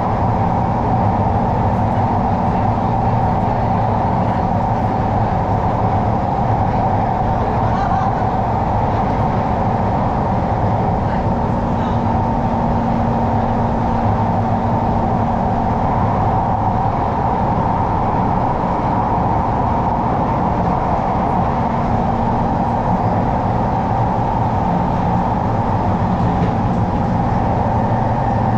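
Singapore MRT train running through a tunnel, heard from inside the carriage: a loud, steady rumble of wheels on rail and running gear with a faint constant hum.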